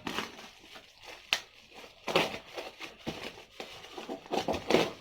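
Hands working at a tightly taped cardboard box to get it open: irregular scraping, tearing and crinkling of packing tape and cardboard, with a few sharp clicks.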